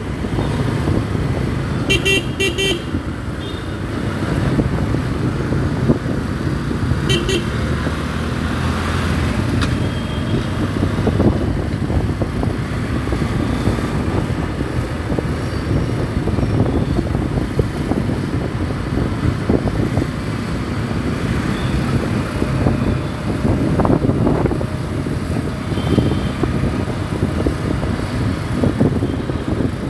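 Ride-along on a motorcycle in city traffic: steady engine and wind rumble, with a vehicle horn tooting twice quickly about two seconds in and once more around seven seconds in.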